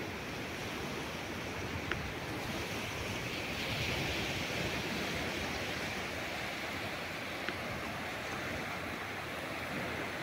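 Small waves washing up a flat sandy beach: a steady surf hiss that swells about four seconds in as a wave runs in.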